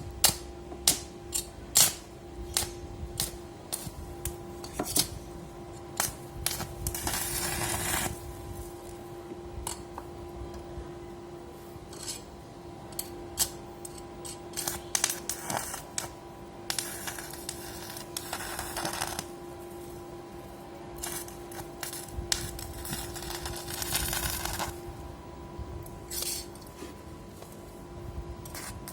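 Light clicking and clatter of small hard objects being handled and set down, with a few short scraping or hissing stretches and a steady faint tone underneath.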